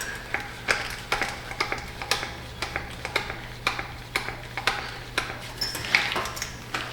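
Manual lever-action grease gun being pumped at an excavator's blade-pin fitting: a run of sharp metallic clicks, about three a second and a little uneven, over a faint steady low hum.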